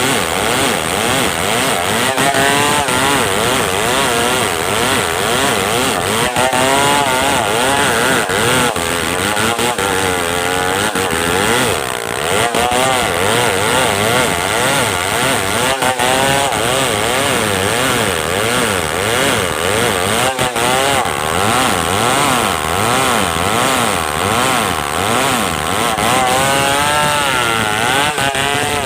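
Stihl 070 two-stroke chainsaw running hard while cutting wood, its engine pitch rising and falling over and over as it works through the cut.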